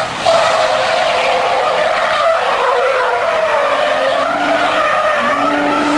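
Car tyres squealing continuously as a car drifts sideways, the screech wavering up and down in pitch, with a brief break just after the start. A steady lower hum joins near the end.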